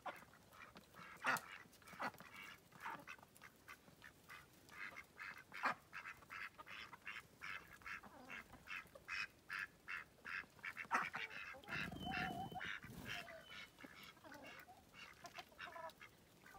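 Ducks quacking in short, repeated calls, a few a second, among a flock of chickens, with a longer, lower call about twelve seconds in.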